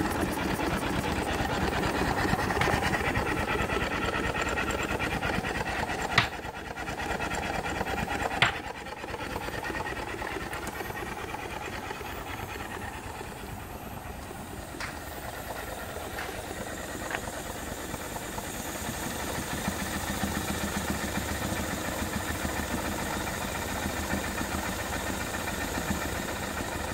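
Small two-cylinder compound vertical steam engine running steadily at about 200 rpm under steam from its boiler, driving an alternator by V-belt, with a continuous hiss of steam. Two sharp clicks stand out about six and eight and a half seconds in.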